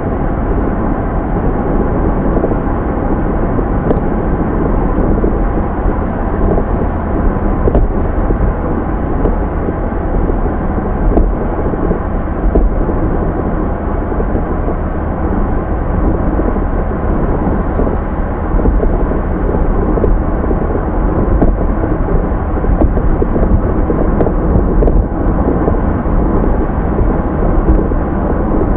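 A car engine running steadily at constant speed: an even low rumble that neither rises nor falls.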